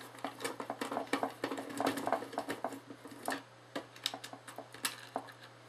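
Screwdriver turning out the ground-wire screw in a metal flood light housing: many small clicks and scrapes of the tool and screw against the metal, thinning out to a few scattered clicks after about three and a half seconds.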